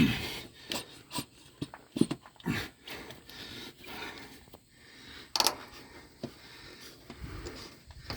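Hand work with pliers on a truck cab air bag's air line fitting and mounting clips: scattered sharp clicks and knocks with short scraping rubs in between.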